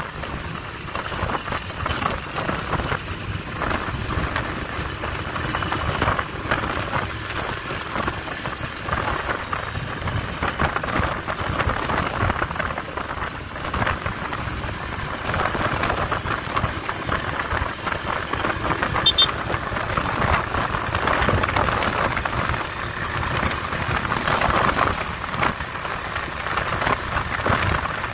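Small motorcycle engine running while riding along a road, under a steady rush of wind and road noise over the microphone.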